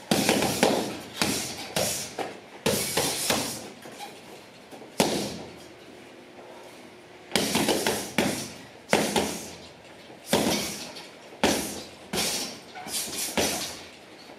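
Punches landing on a hanging heavy bag: sharp thuds in quick combinations of two to four hits, with short pauses between the flurries.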